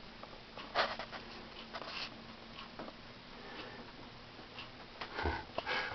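Faint scattered clicks and brief rustles from a handheld camera being moved about, with a few louder rustles about a second in, around two seconds, and near the end, in the echo of a small bathroom.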